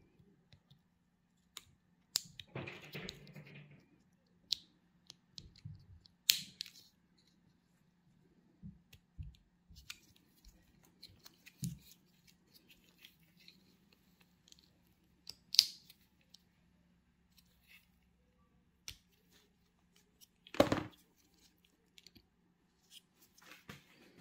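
Small metal pick clicking and scraping as it works terminal pins out of a plastic wiring-harness connector, with scattered light clicks, a short rustle of handled wire about two to four seconds in, and a few sharper clicks and taps.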